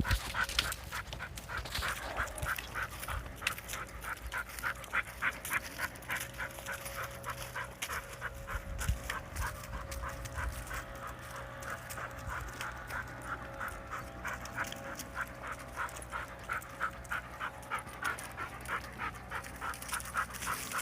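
A dog panting heavily in a quick, even rhythm of about four breaths a second, out of breath from running on the walk.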